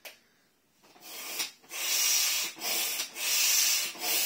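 Hand air pump inflating a vinyl pool inflatable: a short click at the start, then from about a second in, rhythmic rushing strokes of air at a little over one a second.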